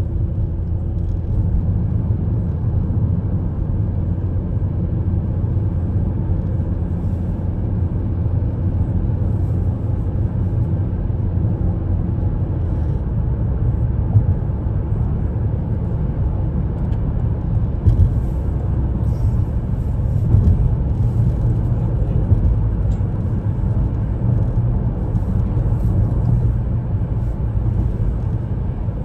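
Car driving on the road: a steady low rumble of road and engine noise, with a few light knocks along the way.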